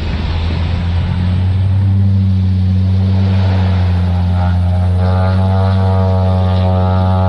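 Cessna Grand Caravan's single PT6A turboprop engine and propeller running at take-off power: a rushing noise gives way to a steady low propeller drone, with a higher whining tone joining in after about four seconds.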